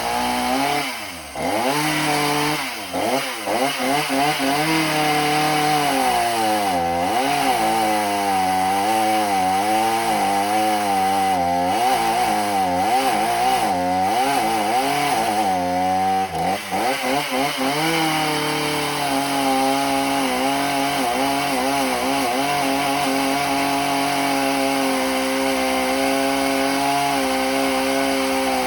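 Mountfield MC3720 chainsaw's small two-stroke engine running, its speed repeatedly dipping and rising, then holding a steady pitch for the last third. With a brand new bar and chain fitted, the saw is struggling.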